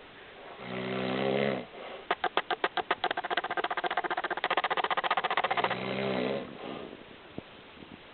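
A man snoring. A short droning snore comes first, then a fast rattling flutter that lasts about three and a half seconds and quickens as it goes, then another droning note, before the breathing goes quiet.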